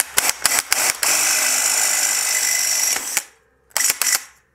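DeWalt cordless drill with a 19/64 in bit drilling out the leftover rivnut material in a bicycle frame's bottle-boss hole. The first second is a string of short trigger bursts, then a steady run of about two seconds with the bit cutting metal, stopping about three seconds in, then two more short bursts near the end.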